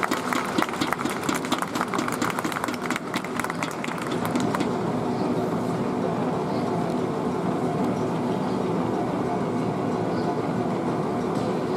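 Stadium crowd clapping, many quick claps that stop about five seconds in, then a steady hum of crowd and stadium background.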